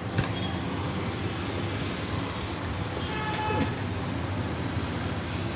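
Steady roadside traffic noise with a low hum. There is a single sharp click just after the start, and a brief, high toot with several overtones a little after three seconds in.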